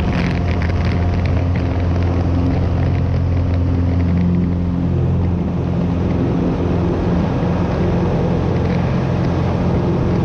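A Cessna 182's piston engine and propeller running steadily, heard from inside the cockpit as the plane rolls along a grass strip. The engine tone holds an even pitch throughout.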